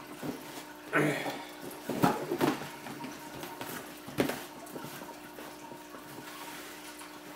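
Cardboard shoebox being tipped, handled and set down on a table: a few dull knocks and scrapes, the loudest about two seconds in, over a steady low hum.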